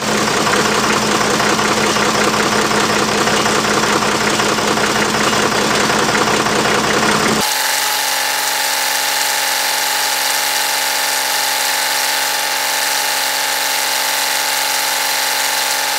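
Old industrial tractor-loader's engine running steadily while the front loader works the bucket. About seven seconds in, the sound changes abruptly and loses its lowest tones.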